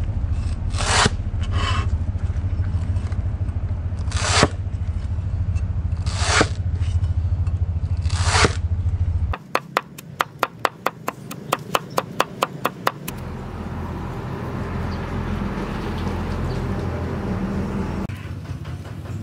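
Leaf-spring steel cleaver slicing lemongrass on a wooden chopping block: several long scraping strokes over a steady low rumble. Then about three seconds of rapid chopping, roughly four to five sharp knocks a second, followed by a steady hiss.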